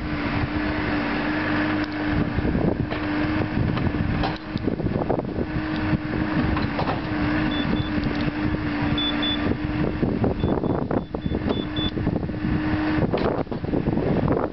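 JCB 3CX backhoe loader's diesel engine running as the backhoe digs, with a steady whine through most of the sound and a few knocks from the digging arm.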